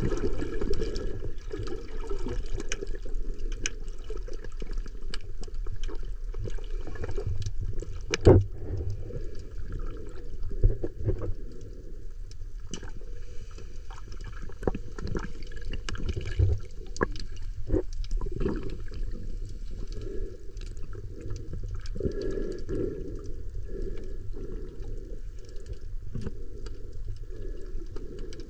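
Muffled underwater water noise, a dull rush with most of its weight low down, broken by scattered clicks and knocks; the sharpest knock comes about eight seconds in.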